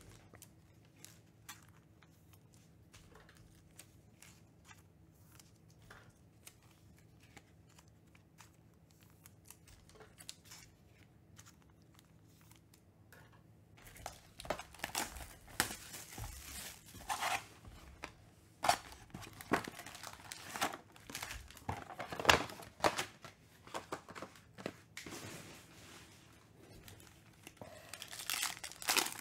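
Panini Mosaic basketball card box and pack wrappers crinkling and tearing in irregular loud bursts from about halfway in, as the box is opened and a pack torn open. Before that there are only faint scattered clicks.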